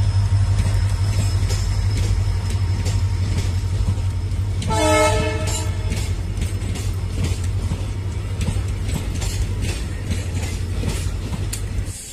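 Diesel locomotive hauling passenger coaches past with a steady low engine rumble; about five seconds in it sounds one horn blast of about a second, and the wheels click over the rail joints as the train runs by.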